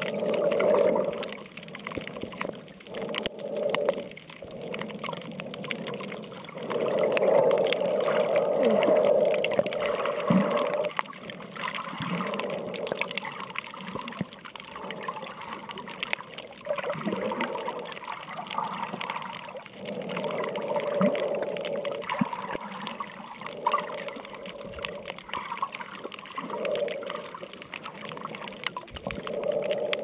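Underwater sound of water sloshing and gurgling around the camera, coming in irregular surges a second or few long.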